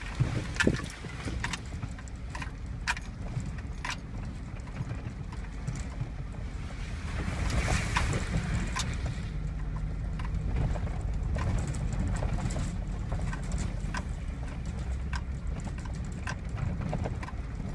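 GMC Sierra pickup with a 5.3 V8 driving slowly over a rough woods trail: a steady low engine and drivetrain rumble with frequent sharp knocks and rattles as it goes over the bumps, and a louder rushing stretch about eight seconds in.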